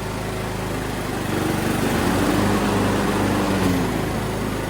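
2005 Craftsman LT 2000 riding mower's engine running steadily; from about a second in it grows louder with a rising drone for about three seconds as the rebuilt mower deck is engaged, then settles back.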